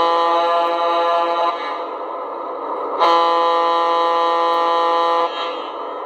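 Lionel LionChief+2 GG1 model locomotive's onboard sound system blowing its horn through the model's speaker: two steady chord-like blasts, a shorter one at the start and a longer one about three seconds in, over the steady hiss of the running sounds.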